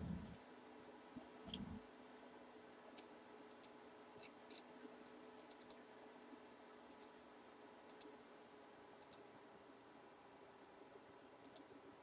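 Near silence with faint, scattered light clicks, often in quick pairs or threes, and a soft low thump or two near the start.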